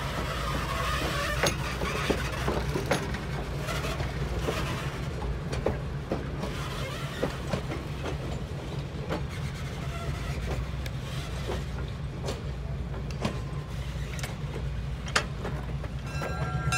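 Train locomotive running with a steady low engine rumble, under scattered sharp clicks and clanks.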